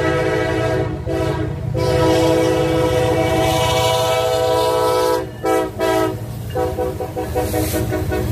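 Diesel freight locomotive's air horn sounding for a road crossing: one long blast with two brief breaks near the start, cut off about five seconds in, followed by a short toot. Under it the locomotives' diesel engines rumble, and after the horn stops the lead units pass close by with engine rumble and wheels clattering on the rails.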